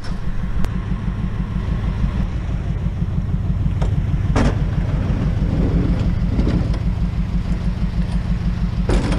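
Pickup truck engine idling with a steady low rumble, with a few sharp knocks over it, one about four seconds in and another near the end.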